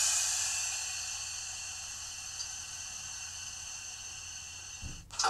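Sanding sound from the ESU sound decoder of an H0 model BR 216 diesel locomotive: a hiss of air-blown sand that fades away over the first two seconds, leaving a faint hiss, with a short click near the end.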